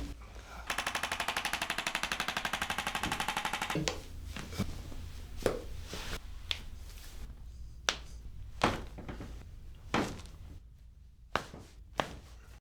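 An ArthroStim adjusting instrument firing a fast, even train of taps, well over ten a second, for about three seconds. It is followed by a string of single sharp cracks about a second apart as spinal joints are manually adjusted.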